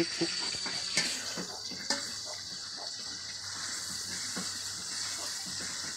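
Chilli, tomato and shallot mixture sizzling in oil in a wok, a steady hiss, with two sharp clicks of a metal spatula against the wok about one and two seconds in.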